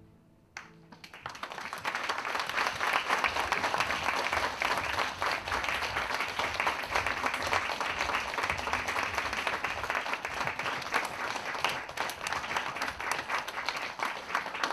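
Audience applauding, the clapping starting about a second in and building quickly to a steady, dense round.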